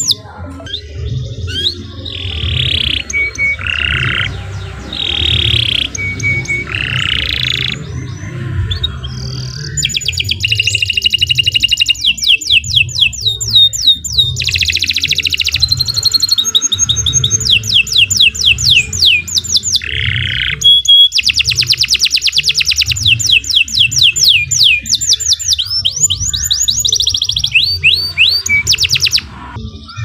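Domestic canary singing a long, nearly unbroken song: fast trills of rapidly repeated sweeping notes alternating with lower, rolling phrases.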